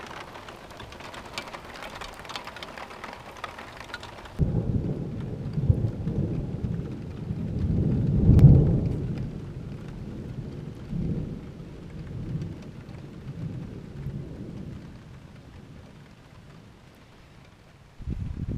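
Heavy rain hissing and pattering, which gives way suddenly about four seconds in to a long roll of thunder that swells to its loudest about halfway through and then dies away slowly. A short low rumble comes near the end.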